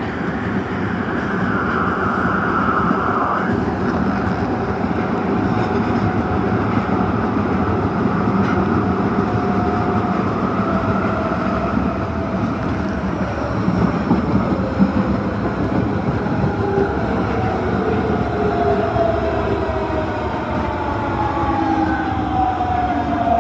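Osaka Metro Tanimachi Line 22 series subway train running with a steady rumble and a motor whine that falls in pitch over the last several seconds as the train slows.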